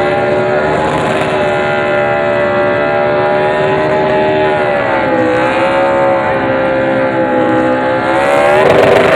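NASCAR stock car's V8 engine held at high revs during a victory burnout, wheels spinning. The pitch sags a little about halfway through, then climbs back, and near the end the sound grows louder and rougher.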